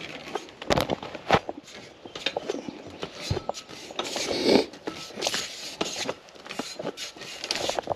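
Footsteps through brush, with irregular crunches, snaps and rustling.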